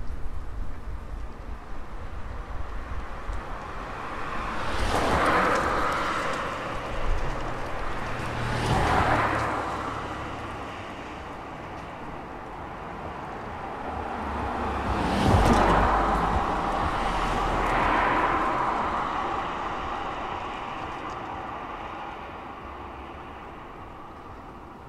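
Cars driving past on a city street, four pass-bys in turn, each swelling up and fading away with tyre and engine noise. The loudest passes a little past the middle, and the street then quietens.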